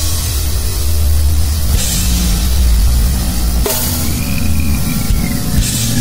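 Noisegrind music: a loud, dense wall of distorted noise with drums and cymbals. Short falling squeals cut through near the start and just before the middle, and an arching whistling tone runs through the latter half.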